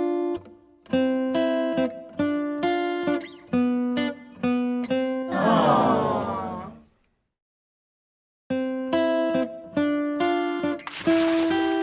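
Intro music of plucked acoustic guitar notes. About halfway through it is cut by a falling swoosh, then about a second and a half of silence, and the guitar notes come back.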